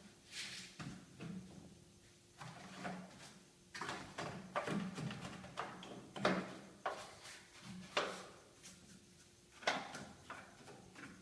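Irregular scraping and rubbing strokes with sharp clicks from hand work on the plastic top panel of a Sanyo top-loading washing machine. Three sharper clicks stand out in the second half.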